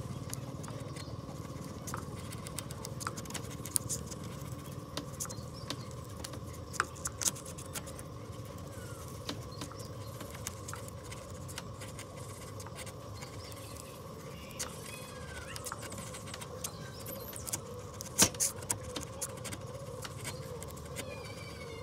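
Hand chisel paring a curved cut in hardwood: wood fibres crackle and snap in small, irregular ticks as the blade shaves off thin curls, with a louder cluster of snaps near the end.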